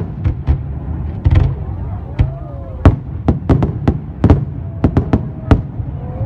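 Fireworks bursting: more than a dozen sharp bangs at irregular intervals, some in quick clusters, over a continuous low rumble.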